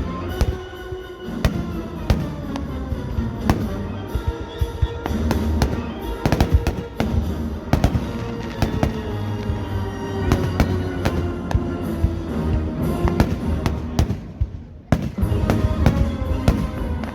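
Fireworks display: a rapid string of bangs and crackles over music, with a brief lull about fourteen seconds in.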